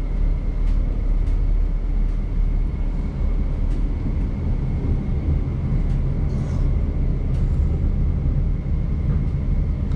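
Inside a light rail tram: steady low running rumble as it draws into a stop, with a faint steady high whine and a few light clicks.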